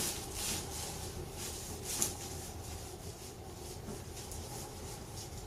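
A single sharp crack about two seconds in, over soft rustling: a spinal joint popping under a manual chiropractic adjustment.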